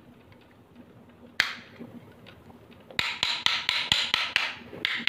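A hard tool knocking rapidly on the sealed plastic case of a phone charger, about five sharp strikes a second, starting about three seconds in after a single click. The strikes are meant to crack open the case's glued seam.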